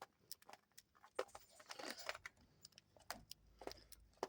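Faint, irregular small clicks and taps from cockatiels' beaks and feet.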